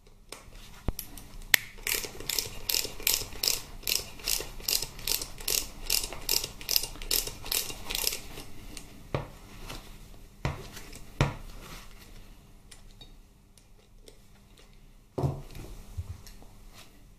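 Ratchet wrench clicking in quick back-and-forth strokes, about three clicks a second for some six seconds, as the Allen-head bolts at the bottom of a motorcycle transmission's trap door are wound out. A few separate metallic knocks follow.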